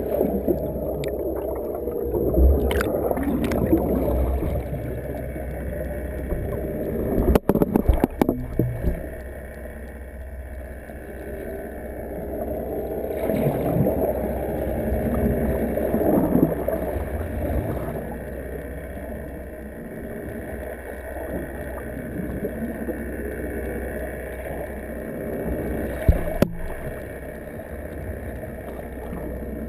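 Muffled underwater water noise and a low rumble, as heard by a submerged camera, with a few sharp knocks about eight seconds in and once near the end.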